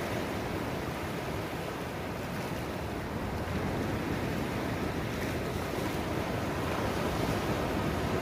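Small waves breaking and washing up a sandy beach in a continuous surf wash, growing a little louder in the second half.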